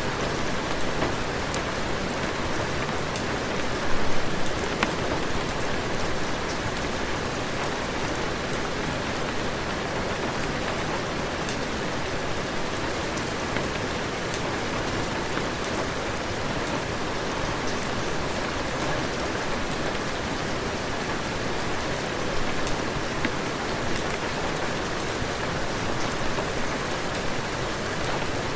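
Steady heavy rain falling, an even hiss with scattered sharp ticks of drops, and a brief louder spell about four seconds in.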